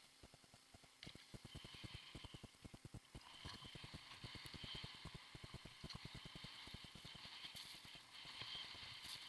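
Faint sound of skiing through powder snow: a soft hiss of skis sliding on snow over a fast, even run of low thuds, roughly eight to ten a second, from the moving camera rig.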